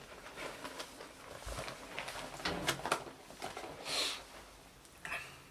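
A person moving about at close range: light rustling with scattered small knocks and clicks, and a short hiss about four seconds in.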